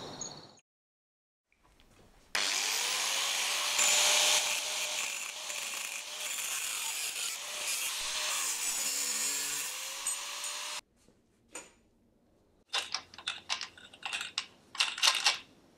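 Night insects chirp briefly and fade out. After a short pause, a hand-held angle grinder with a thin cut-off disc runs steadily against copper pipe for about eight seconds, its motor pitch wavering, then cuts off abruptly. Near the end come a string of light metallic clicks and knocks as the pipe in the vise is worked by hand.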